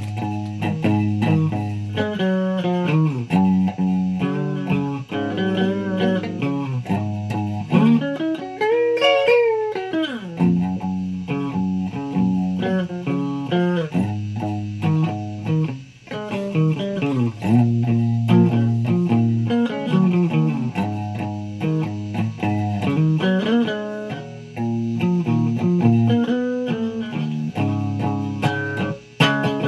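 Guitar music: plucked single-note lines over lower notes, with a long pitch bend that rises and falls about nine seconds in.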